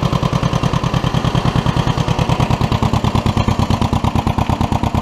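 The two-cylinder gasoline engine of a 1957 John Deere 420 crawler running steadily, with an even, rapid pulsing beat.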